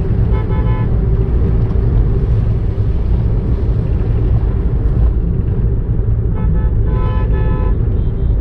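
Car cabin road and engine noise while cruising at about 80 km/h, a steady low rumble. Short horn toots sound about half a second in and again near the end.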